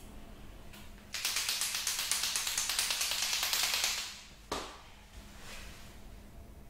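A white chalk marker shaken hard for about three seconds, the mixing ball inside rattling rapidly, followed by one sharp click and the faint scratch of the marker tip on glass.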